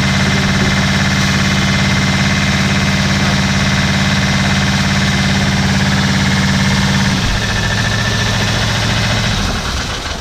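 Small engine of a Kube portable motopump (centrifugal fire pump) running steadily under load, with the discharge jet splashing into the pit. About seven seconds in it drops in speed, and it shuts off about two seconds later.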